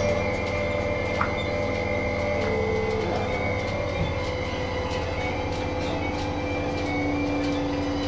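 Steady mechanical hum of a dairy barn's pipeline milking system running during milking: the vacuum pump drone with constant tones and faint, regularly repeated clicks from the pulsators.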